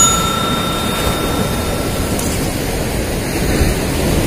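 Steady rush of sea surf washing over rocks, with wind on the microphone. A high ringing tone dies away in the first two seconds.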